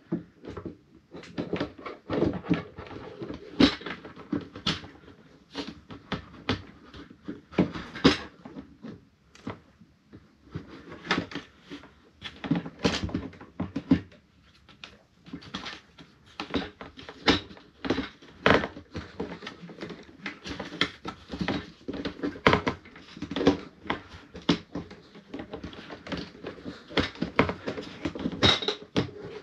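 Irregular plastic knocks, clicks and rubbing as a fuel pump and sender assembly and its corrugated fuel hoses are worked by hand down into the opening of a Ford Mondeo ST220 plastic fuel tank.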